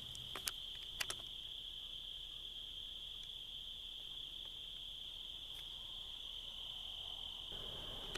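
A cricket trilling steadily in one continuous high note, with a few sharp clicks in the first second or so.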